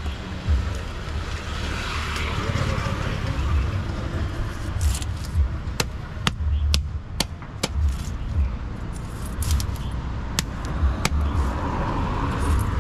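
Large fish knife striking and scraping on a wooden log chopping block while a tilapia is scaled and cut. Sharp, irregular knocks come close together around the middle, over a steady low rumble.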